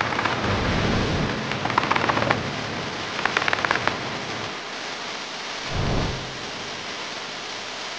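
A steady rushing noise of tyres and wind, with two short bursts of rapid clattering about two and three and a half seconds in, as a sedan drives over a row of rubber speed bumps. A brief low swell comes about six seconds in.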